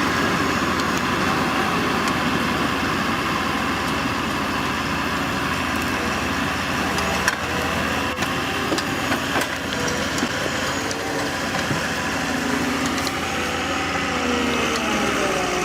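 Heavy engine-driven machinery running steadily, with a few sharp knocks about halfway through and a wavering tone near the end.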